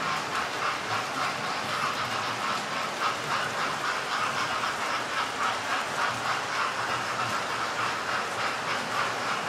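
Several model railway trains running round the layout at once: a steady rattle of wheels on the track, pulsing a few times a second.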